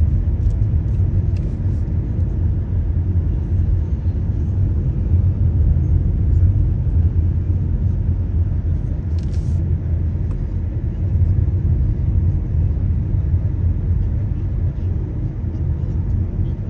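A car being driven, its road and engine noise a steady low rumble. A short hiss comes about nine seconds in.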